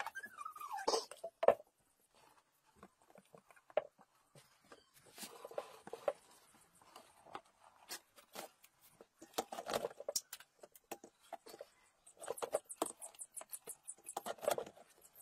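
Handling noise from a clear plastic tub: a clay dish set down on straw with a brief squeak at the start, then scattered knocks, rustles and clatters as a plastic lid is lifted and fitted onto the tub.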